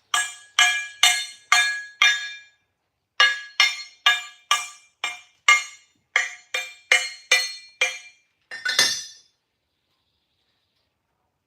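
Repeated hammer strikes on a piece of welded steel that rings at each blow. There are five strikes, a short pause, then about a dozen more at roughly two to three a second, ending with a longer, rougher metallic clatter.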